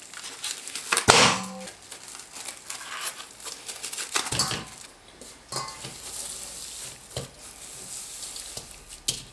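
Plastic packaging of ground pork crinkling and tearing as it is opened and handled, with scattered knocks and clicks; the loudest rustle comes about a second in.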